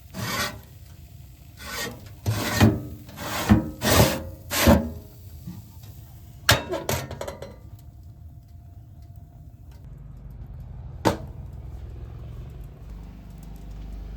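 A series of about six rough scraping or rubbing strokes, then a few short sharp knocks.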